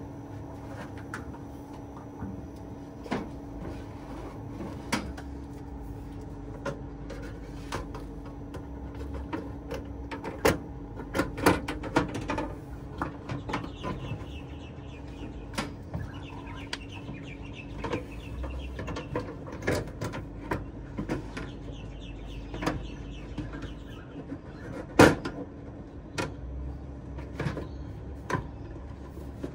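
A steady machine hum, with many scattered sharp clicks and knocks over it; the loudest knock comes near the end.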